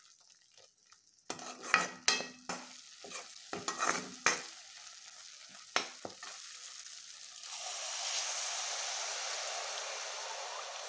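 A metal spatula scrapes and stirs thick masala paste frying in a kadai, with sharp scrapes and clinks in the first half. About two-thirds of the way in, a steady hiss begins as water is poured into the hot pan.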